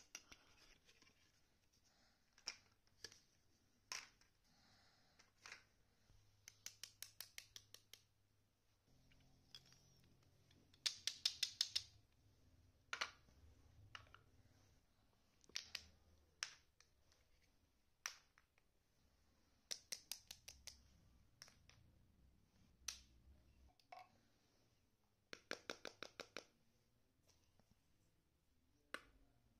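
Small plastic toy kitchen pieces clicking and tapping as they are handled and set down on a wooden floor. Single clicks are scattered between several short runs of rapid clicks, the loudest run about eleven seconds in.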